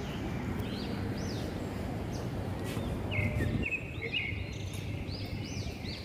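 Small birds chirping in short repeated high-pitched groups over a steady low outdoor rumble.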